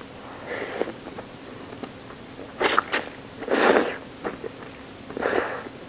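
A person slurping ramen noodles: a couple of quick sharp sucking sounds about two and a half seconds in, a longer slurp about a second later, and a shorter one near the end.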